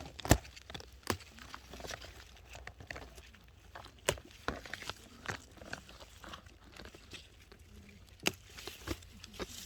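Irregular rustling and crackling of leafy strawberry plants being handled while picking, with a few sharp snaps, about four in all.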